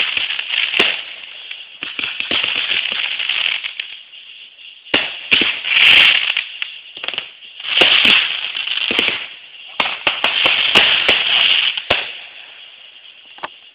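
Fireworks crackling in several dense spells of rapid pops, each lasting a second or two, with a few single sharp pops between them.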